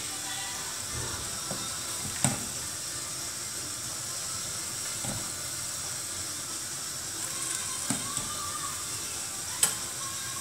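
Cime di rapa and freshly boiled orecchiette sizzling steadily in olive oil in a frying pan, with a few sharp clinks of a metal spoon against the pan and pot, the loudest about two seconds in and near the end.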